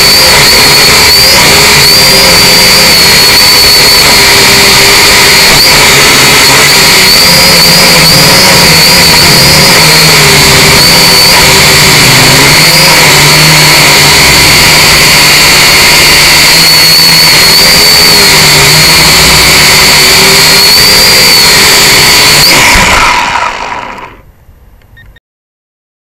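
Syma X5C quadcopter's brushed motors and propellers whining loud and steady, heard close up through its onboard camera, the pitch wavering slightly with throttle. About 23 seconds in the motors wind down and stop.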